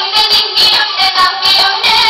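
An action song plays: a singing voice over music with a steady beat.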